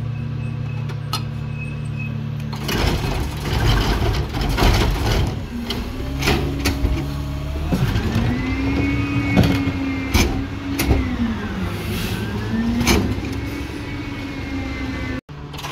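CNG rear-loading garbage truck idling, then speeding up about three seconds in to drive its hydraulics. Repeated knocks and clatter of carts and trash in the hopper follow, with a hydraulic whine that rises, holds and falls several times as the packer cycles.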